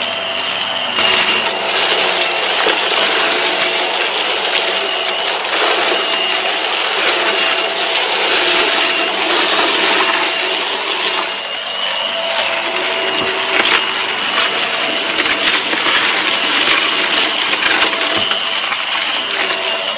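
Hart vacuum running with a steady motor whine while sucking up shredded cardboard and colourful scraps from carpet: a constant crunching and rattling of debris through the head, picked up by a microphone mounted on the vacuum.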